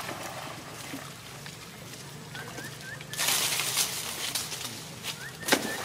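Water splashing and sloshing as macaques move through shallow river water. A loud splash comes about three seconds in and lasts about a second, and a sharp single splash comes near the end. A few faint short chirps are heard between them.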